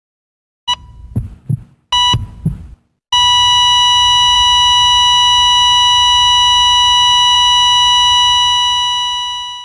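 Heart-monitor sound effect: two short beeps, each with a pair of low heartbeat thumps, then a long unbroken flatline tone at the same pitch. The flatline starts about three seconds in and fades away near the end, signalling the heart has stopped.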